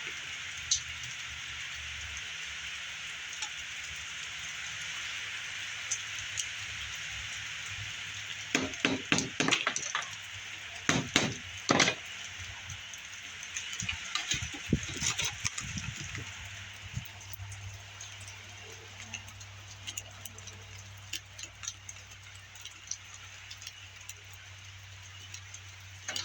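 Clusters of sharp knocks and clicks, like hard objects being handled and tapped, over a steady hiss, with the knocks bunched in the middle.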